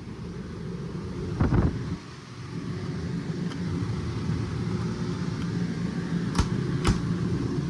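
RV rooftop air conditioner running with a steady low hum. There is a brief bump about a second and a half in and two sharp clicks near the end.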